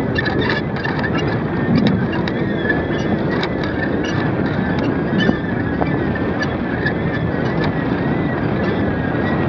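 Steady wind rushing over the microphone of a kite-suspended camera, with a thin wavering whistle running through it and scattered light clicks and rattles.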